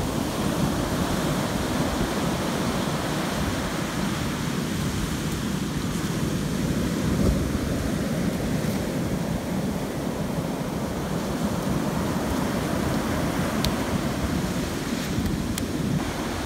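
Ocean surf breaking and washing up a sandy beach in a steady rush, with wind buffeting the microphone. A few faint clicks near the end.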